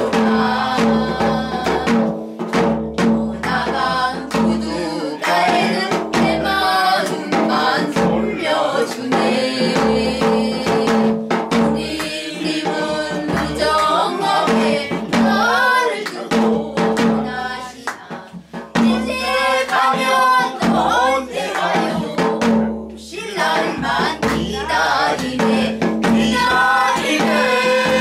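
A mixed group of women and men singing a Korean folk song (minyo) in unison, over a drum accompaniment that keeps a steady beat, with a short break in the singing about two-thirds of the way through.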